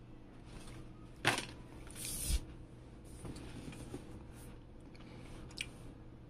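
Cardboard box being handled by hand: a sharp tap about a second in, then a brief scrape ending in a soft thump, followed by light rustling.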